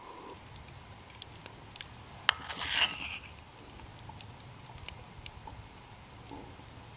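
A wooden spoon knocks against a cast-iron pot and stirs thick strawberry sauce: a sharp clack a little over two seconds in, then a short wet squelching scrape. Faint scattered ticks otherwise.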